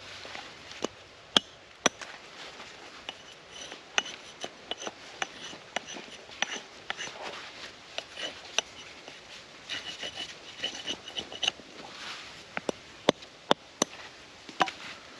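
Small hatchet carving a hard persimmon billet: scraping, shaving strokes of the blade along the wood, broken by sharp knocks where the blade strikes the wood, several in quick succession near the end.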